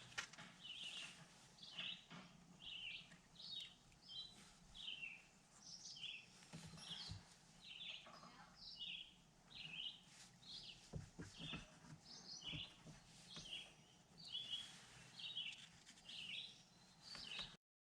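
A small bird chirping over and over, faint, about two short chirps a second, with a few soft knocks in the background.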